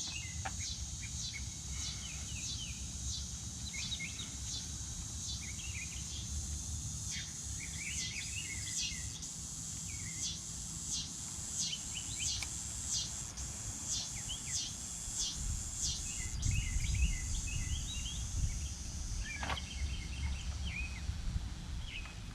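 Outdoor ambience of small birds chirping in many short repeated calls over a steady high insect drone, with wind rumbling on the microphone, stronger over the last several seconds.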